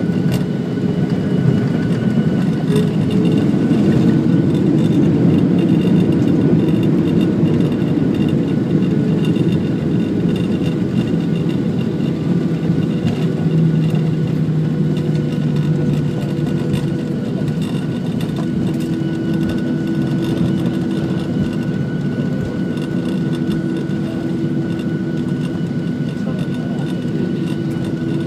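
Boeing 737-700's CFM56 jet engines and airframe heard from inside the cabin during the landing roll: a dense low rumble swells over the first few seconds, typical of reverse thrust, then eases gradually as the aircraft slows, with a steady high whine underneath.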